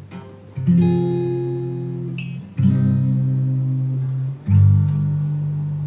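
Guitar playing three strummed chords about two seconds apart, each left to ring out and fade.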